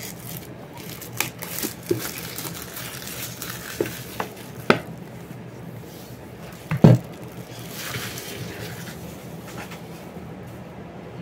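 Clear plastic shrink-wrap being peeled off a cardboard card box and crumpled, crinkling with a few light clicks, and a single dull knock about seven seconds in.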